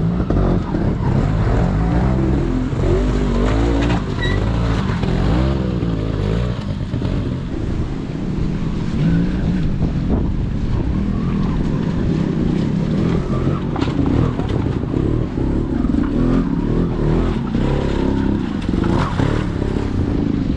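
Trials motorcycle engine running, its revs rising and falling in quick blips as the bike is ridden through a section.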